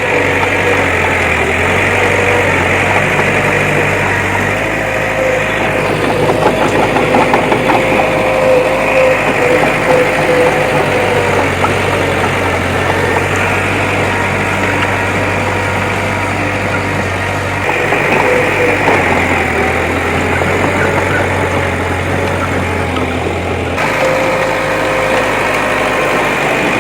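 Diesel engine of heavy earthmoving machinery running steadily, with a rougher, clattering stretch several seconds in.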